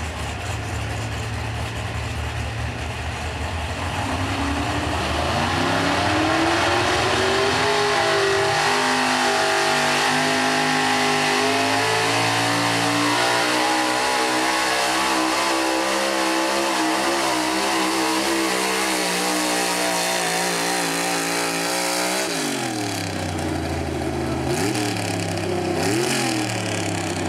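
Ford F-series pickup engine at full throttle pulling a weight-transfer sled: the revs climb over several seconds and hold high under load. About 22 seconds in, the throttle is chopped and the engine drops off, then it is blipped twice briefly.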